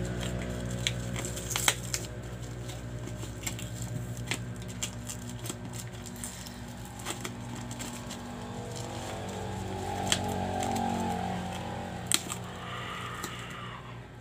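Bubble wrap being pulled and torn off a box: plastic crinkling with scattered sharp clicks and pops.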